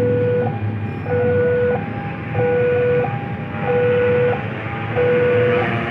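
Two-tone electronic warning alarm sounding a higher then a lower tone over and over, the pair repeating about every second and a quarter, over the rumble of a train on the tracks.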